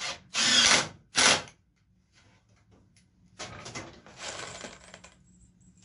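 Screws being driven into pine boards with a cordless drill, heard as short rasping bursts: two loud ones in the first second and a half, then several quieter, choppier ones around the fourth and fifth seconds.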